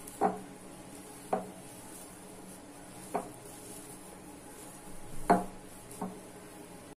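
A hand knocking against a glass mixing bowl while kneading dough: five short, sharp knocks at uneven intervals, the loudest about five seconds in.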